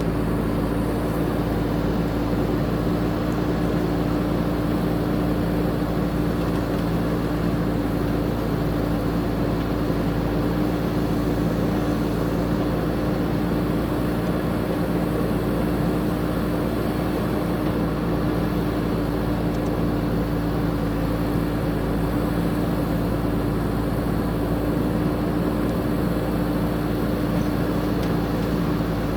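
JCB 3DX backhoe loader's diesel engine running at a steady speed, a constant low hum with no revving or sudden knocks.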